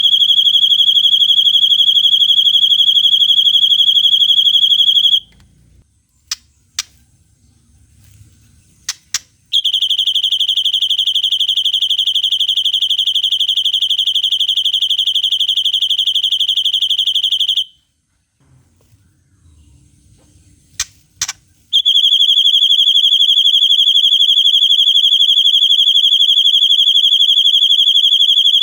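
White-rumped shama (murai batu) singing the long 'cililin' trill: a fast, even, high-pitched trill held at one pitch for several seconds, given three times (about five, eight and seven seconds long) with a few short sharp chips in the gaps between.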